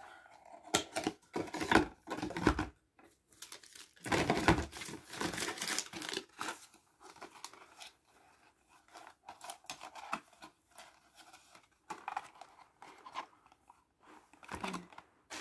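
Packaging being handled: rustling and crinkling of a cardboard hair-dye box and its wrapping. It is loudest twice, from about half a second to two and a half seconds in and again from about four to six and a half seconds in, with quieter scattered rustles and clicks afterwards.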